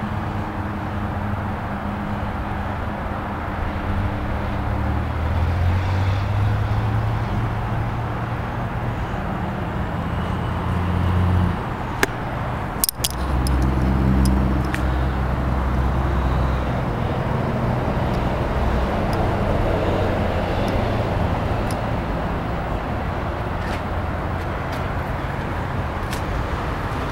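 Car engines running nearby: a steady low hum that shifts in pitch, with a couple of sharp clicks about halfway through.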